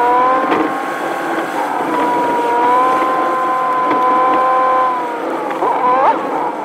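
Gasoline Ford Ranger pickup driving, heard from inside the cab: a steady engine drone that holds one pitch, dips about five seconds in and climbs quickly again near the end.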